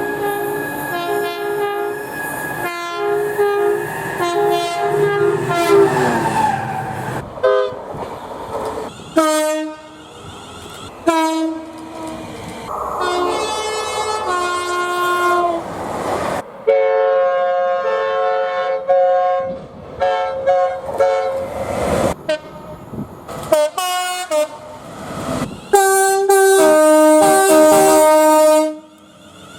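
British train horns sounding in quick succession, cut together with abrupt changes from one recording to the next. Most blasts step between a higher and a lower note, in the two-tone pattern of these horns. There are several short toots and one long blast near the end that stops abruptly.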